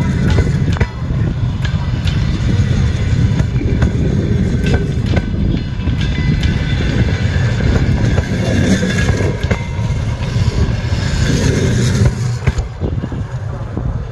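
A train moving along the track: a heavy, steady low rumble of wheels on rails with scattered clicks and knocks. It eases off about twelve and a half seconds in.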